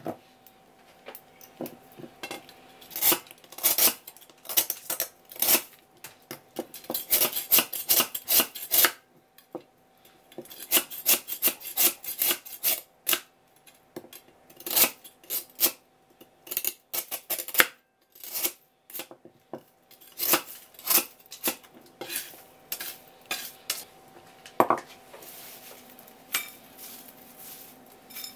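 A long knife blade scraping across a block of ice, shaving it into fine ice in clusters of quick, sharp strokes with short pauses. Near the end the strokes give way to softer sounds of shaved ice being gathered and piled into a ceramic dish.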